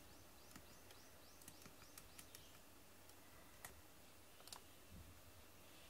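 Faint, scattered clicks of a computer mouse and keyboard over near-silent room tone.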